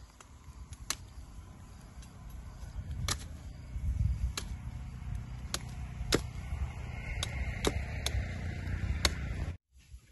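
A knife chopping and trimming a thin wooden branch: a series of sharp, irregularly spaced knocks of the blade striking the wood, over a low rumble. The sound cuts off abruptly just before the end.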